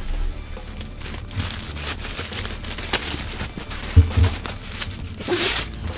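Packing paper and plastic wrapping rustling and crinkling in irregular bursts as someone digs through a cardboard shipping box. There are two low knocks about four seconds in.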